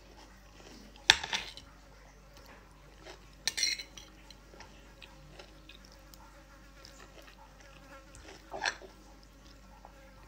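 A metal fork clinking and scraping against a ceramic dinner plate three times, sharpest about a second in, with a brighter ringing scrape a few seconds later and a smaller clink near the end, while a person eats.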